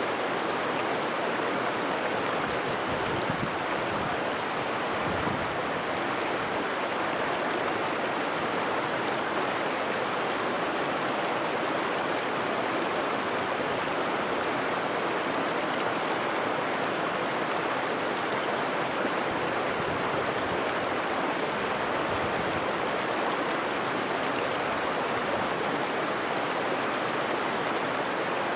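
Creek water rushing and babbling steadily over rocks, an even, unbroken wash of sound.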